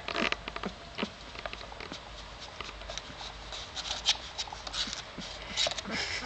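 Newborn Greater Swiss Mountain Dog puppies stirring in their sleep on fleece blankets: soft rustling and scattered small clicks, with a few faint squeaks.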